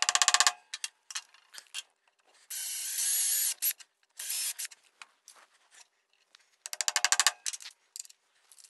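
Power drill boring a hole into a plywood base in two short bursts a few seconds in, with quick rattling runs of clicks at the start and again near the end.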